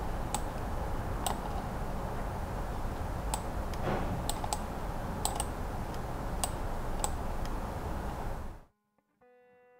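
Scattered sharp clicks of a laptop's keys and mouse buttons being pressed, one every second or so, over a steady room hum. The sound cuts off suddenly near the end.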